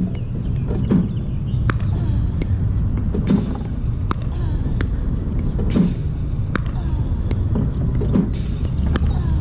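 Pickleball volley drill: a Spinshot ball machine feeding pickleballs and a paddle volleying them back, heard as a regular series of sharp pops about every second, over a steady low rumble.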